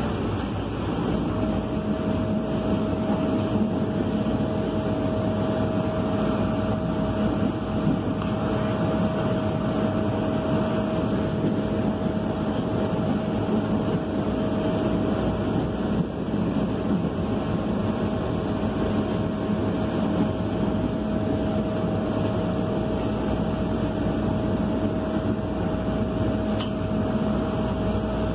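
MBTA Green Line Type 7 light-rail car running, heard from inside the passenger cabin: a steady rumble and rush of the car in motion, with a steady tone that comes in about a second in and holds.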